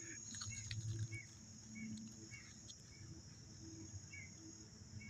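Faint woodland ambience: a steady high-pitched insect drone, with short chirps repeating roughly every half second.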